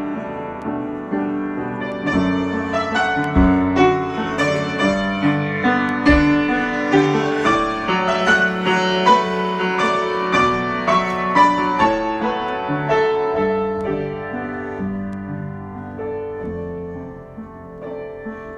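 Piano being improvised: a flowing run of struck notes and chords over low bass notes, growing softer from about twelve seconds in.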